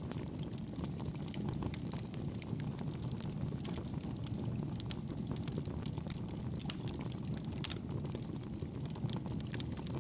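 Wood fire burning in a fireplace: a steady low rumble of flames with many small, sharp crackles and pops.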